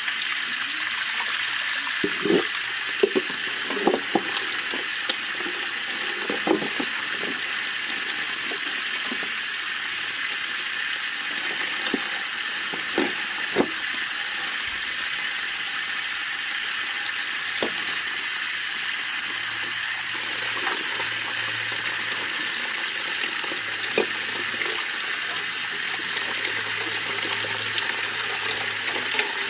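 Water running steadily from an outdoor standpipe tap, splashing into a metal pot and onto a concrete drain. Short splashes and knocks come now and then, more often in the first half, as vegetables are washed by hand in the pot.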